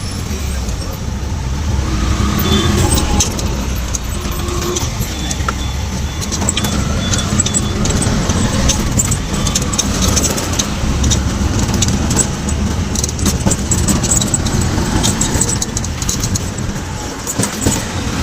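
Riding inside an auto-rickshaw: its engine and the road make a steady low rumble, with frequent small rattles and clicks from the body.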